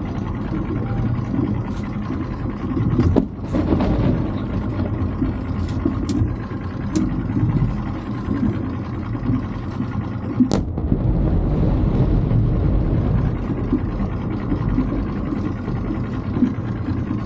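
A small boat's outboard motor running steadily, with several sharp firework bangs across the water; the loudest come about three seconds in and about ten seconds in.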